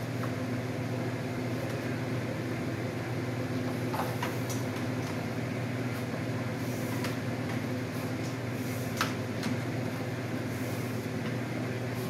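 Steady low machine hum, like a fan or motor running in the shop, with a few faint clicks and taps as a heating cable is handled and laid out on a board.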